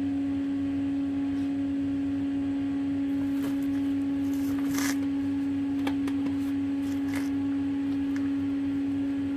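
A steady machine hum holding one constant pitch, with a few faint clicks scattered through it.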